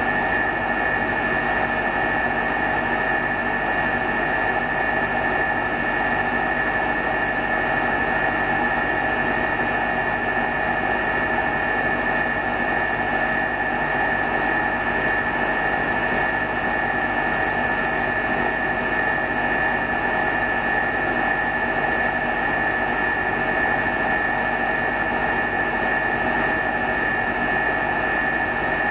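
Steady machinery hum with a constant high whine from the vacuum chamber's pumping equipment, which keeps the chamber at high vacuum during a pulsed plasma thruster firing test.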